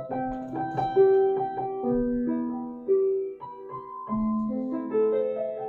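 Grand piano playing a pop ballad in C major, with chords moving C – G/B – Am – G as the bass steps down by step under a sustained melody.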